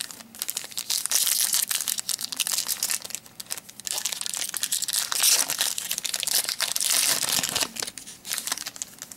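Foil wrapper of a 2012 Topps Strata football card pack being torn open and crinkled by hand: several seconds of dense crackling and tearing, with a couple of short lulls.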